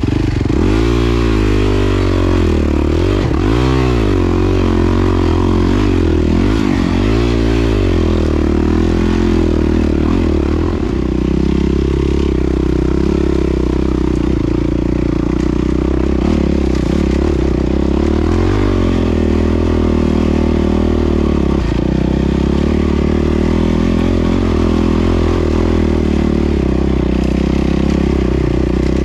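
Yamaha WR450F's single-cylinder four-stroke engine running, the revs rising and falling several times in the first eight seconds or so, then holding steadier.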